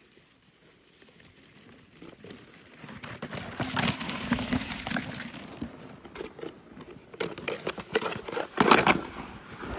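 Wooden sleds scraping and hissing over packed snow as riders slide past close by. The first pass is about four seconds in, with snow spraying from the rider's boots. A second, louder scrape comes near the end.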